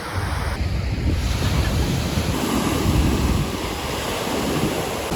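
Wind buffeting the microphone: a rough, gusting rumble with a hiss over it and no distinct events.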